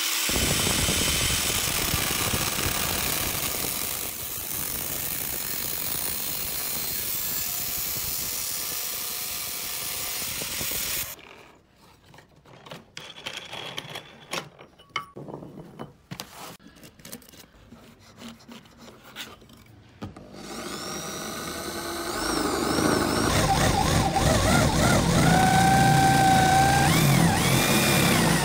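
Angle grinder with a cut-off disc cutting into a steel pipe, running for about eleven seconds and stopping suddenly. Then scattered knocks as the pipe is handled in a wooden jig. About twenty seconds in, a drill starts boring a flat-bottomed hole into a wooden board, its pitch rising and falling as it cuts, loudest near the end.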